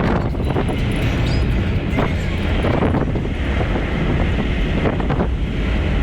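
Steady low rumble of a car driving on the road, with wind buffeting the microphone.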